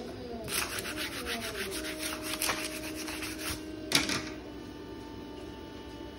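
Quick, repeated rubbing strokes over transfer tape, burnishing a vinyl stencil down onto the wooden top of a cable spool. One stroke near four seconds in is louder, and after it the rubbing stops.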